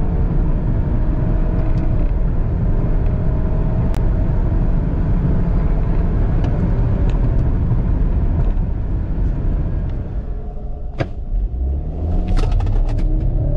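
BMW 320i's turbocharged 2.0-litre B48 four-cylinder heard from inside the cabin, pulling hard at full throttle with its pitch slowly rising. About ten seconds in it drops to a quieter idle with a few sharp clicks, and near the end the engine revs up again as the car launches from a standstill.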